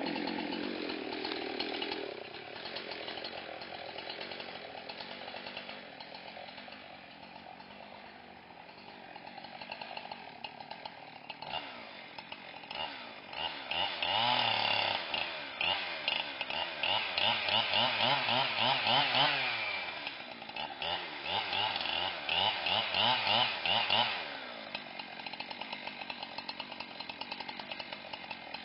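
Chainsaw making the back cut behind the felling notch of a standing tree: the engine runs lower at first, then through the middle revs up and down in repeated pulses as it cuts under load, and settles back to a steadier, lower run near the end.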